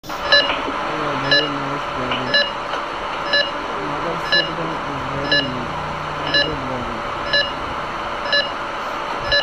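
Medical patient monitor beeping steadily about once a second with short electronic tones.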